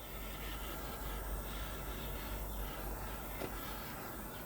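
Faint steady hiss with a low hum underneath: quiet room tone, with no distinct sound.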